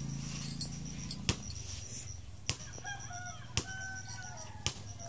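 Faint, drawn-out animal calls that waver up and down in pitch, starting about halfway through, with a sharp click roughly once a second.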